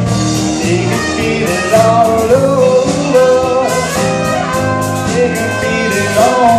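Live band playing: a trumpet leading over electric guitar, keyboards and a drum kit, loud and steady.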